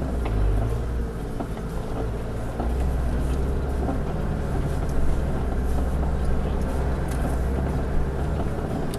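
Four-wheel-drive vehicle's engine pulling at low speed over a rough off-road track, heard from inside the cab, its low drone getting stronger about two and a half seconds in. A few knocks and rattles from the vehicle on the rocks, loudest about five and eight seconds in.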